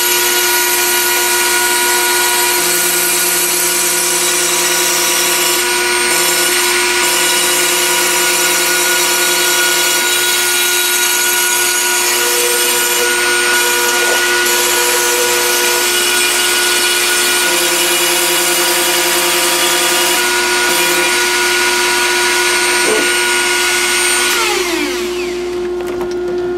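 CNC machine running a squares-and-circles test cut: the spindle gives a steady whine while the stepper motors add tones that switch on and off every few seconds as the axis moves change. Near the end the whine falls in pitch as the spindle winds down.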